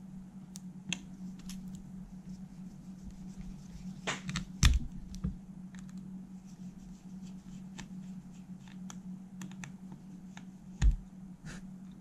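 Small screwdriver working the screws of a cassette deck's motor plate: light clicks and scrapes of metal, with a couple of louder knocks as the mechanism is handled, about four seconds in and near the end. A steady low hum runs underneath.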